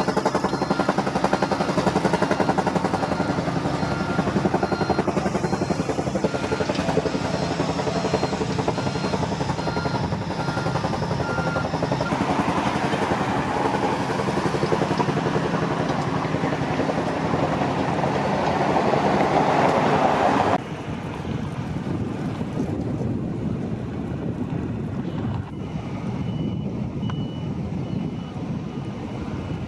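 Steady engine drone with several held tones; it drops suddenly in level about two-thirds of the way through and continues more quietly.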